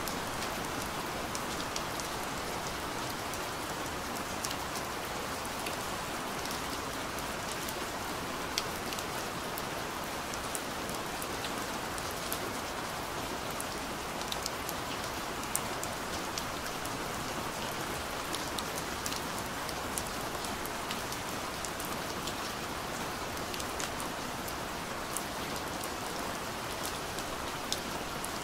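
Steady rain falling, an even hiss with many individual drops landing as scattered sharp ticks.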